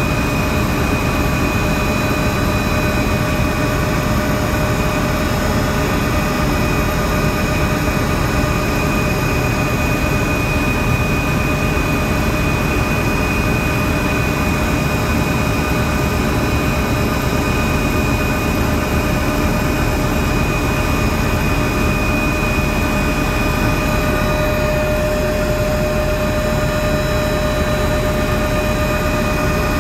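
Helicopter in flight, heard from inside the cabin: a loud, steady drone of engine and rotor, with a constant high whine above it.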